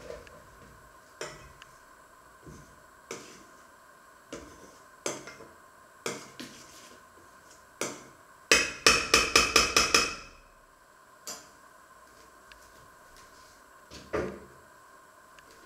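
Kitchen clatter: scattered sharp knocks and clinks of utensils and dishes on a counter, with a quick run of about eight loud clinks in a second and a half about halfway through. A faint steady hum runs underneath.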